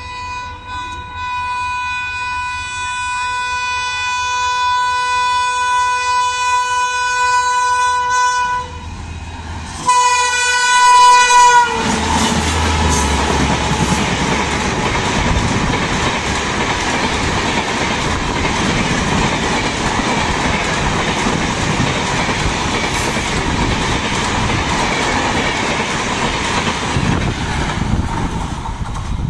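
Train horn sounding one long blast, then after a short break a second blast whose pitch drops as the locomotive passes. Then the steady rumble and clatter of an Indian Railways express's LHB coaches running past at speed.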